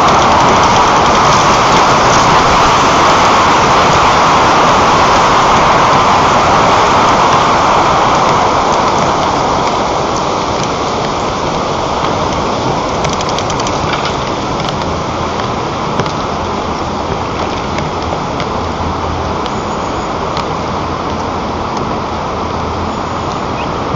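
Strong wind rushing around the microphone of a treetop nest camera: a steady noise that eases a little about nine seconds in.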